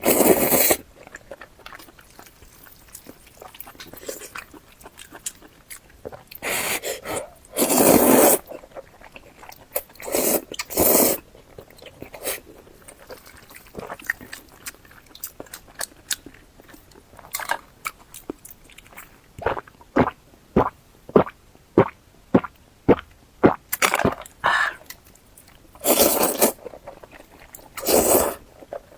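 Close-miked eating: mouthfuls being bitten and chewed, with several louder bursts of mouth noise and, about two-thirds of the way through, a quick run of short chewing clicks about two a second.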